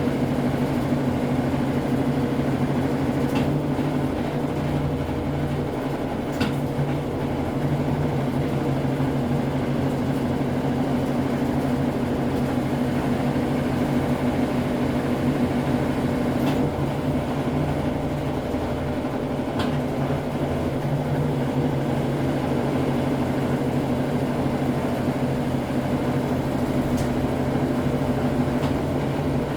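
Brastemp Ative 11 kg top-loading washing machine during its intermediate spin: a steady motor and drum hum with a few faint ticks.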